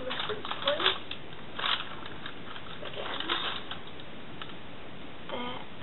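Crinkled pattern paper rustling in short bursts as a clear plastic pattern-drafting ruler is lifted and slid across it.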